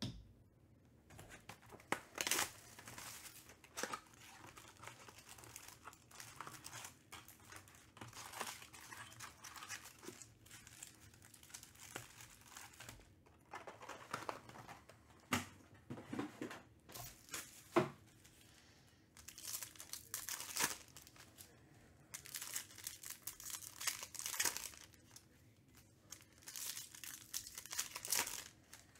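Trading card pack wrappers being torn open and crinkled by hand, in irregular bursts of crackling with a few sharper rips.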